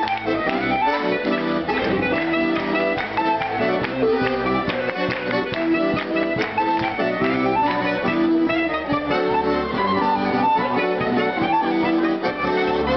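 Live band playing an avant-deux de travers, a traditional dance tune from Upper Brittany. Clarinet and button accordion carry the melody over a drum kit keeping a steady beat.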